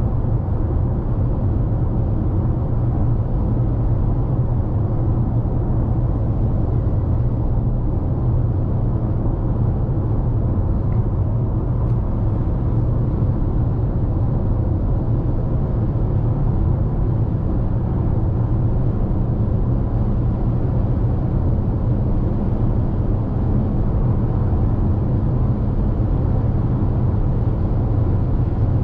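Cabin noise of a 2021 Toyota RAV4 XLE Premium cruising at highway speed: a steady low rumble of tyres on the road, engine and wind, heard from inside the car.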